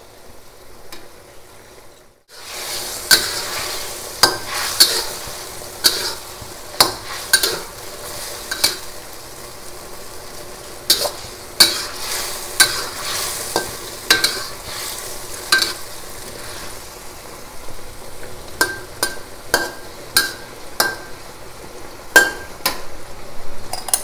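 Metal spatula scraping and clacking against a steel wok as eggplant pieces are stirred, over a steady sizzle of the frying food. The clicks come irregularly, about one or two a second, some with a short metallic ring. It is quieter for the first two seconds.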